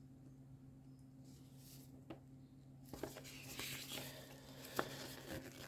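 Faint rustling of a collectible figure pack and its contents being handled, with a few small clicks; the handling grows busier about three seconds in.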